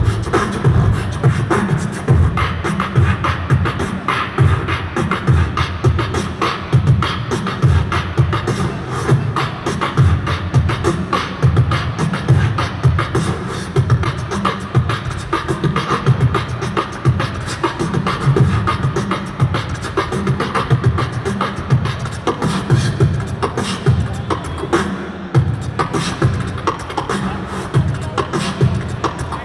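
Human beatboxing into a handheld microphone, amplified over a PA: a fast, continuous beat of deep bass kicks with sharp snare and hi-hat clicks.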